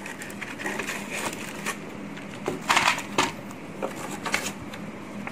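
Plastic packaging crinkling and rustling against cardboard as parts are taken out of a box, in scattered crackles that are loudest about three seconds in.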